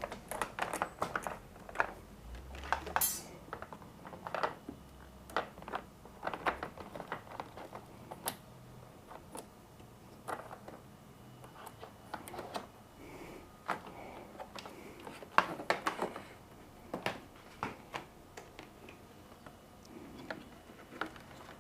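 Irregular light clicks, taps and rustles of a wire and plug being pushed through a gap in a motorcycle's plastic body panel, with plastic parts knocking against each other.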